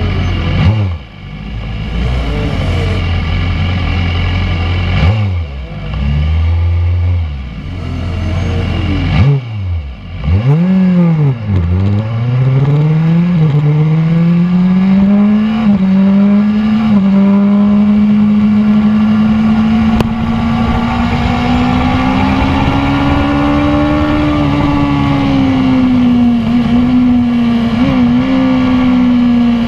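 BMW S1000RR's inline-four engine heard from the rider's seat: low revs rising and falling with throttle blips at first, then accelerating hard through the gears with quick upshifts, and finally holding high revs at speed with wind rush.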